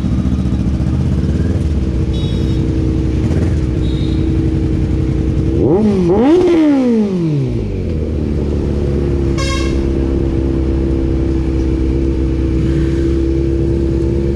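Motorcycle engine idling steadily, blipped twice in quick succession about six seconds in, the pitch rising and sinking back to idle. A short high beep follows a few seconds later.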